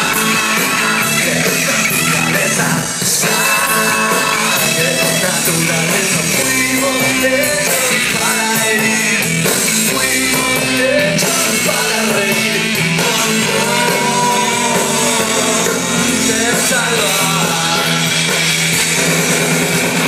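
Live rock band playing with a lead singer, heard loud from within the concert crowd.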